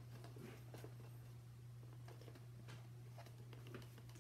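Near silence: faint rustles and light taps of cardboard pieces being handled and pressed together by hand, over a steady low hum.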